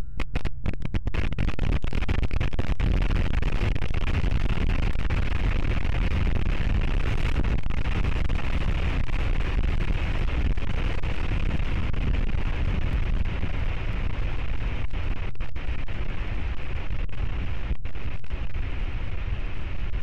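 A volcanic eruption's continuous deep rumbling roar, steady and loud, with no separate blasts standing out.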